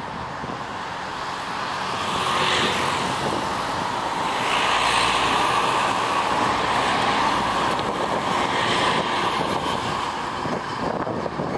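Steady rushing drone of distant engines heard outdoors, swelling louder about two and a half, five and nine seconds in.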